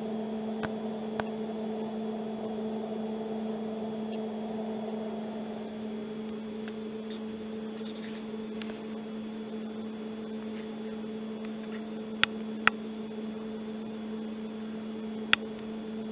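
Steady electrical hum made of two low held tones over a light hiss. A few sharp clicks stand out, two close together about twelve seconds in and another about three seconds later.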